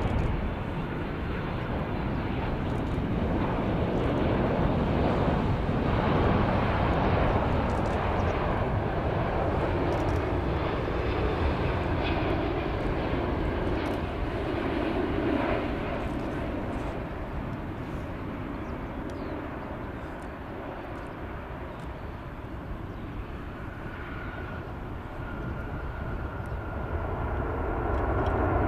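Airbus A380-861 with four Engine Alliance GP7200 turbofans flying past on final approach and landing: a steady jet rumble that swells as the airliner passes, eases after touchdown, and builds again near the end as it rolls out, with a steady high whine joining in.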